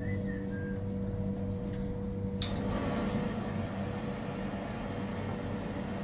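Steady low hum of a small room, like ventilation or air conditioning, with a faint constant higher tone over it. About two and a half seconds in, the background shifts abruptly to a slightly fuller hiss.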